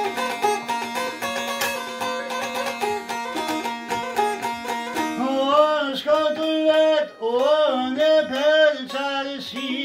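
Çifteli, the two-stringed Albanian long-necked lute, plucked in rapid notes over a steady drone string. About five seconds in, a man starts singing over it, his notes bending and wavering.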